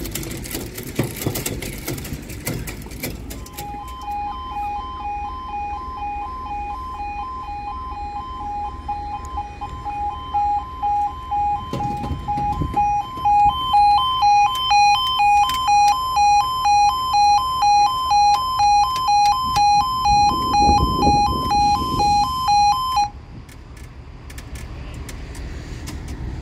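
UK level crossing audible warning alarm sounding its two-tone yodel, two pitches alternating in steady pulses. It starts a few seconds in, grows louder about halfway through, and cuts off suddenly near the end.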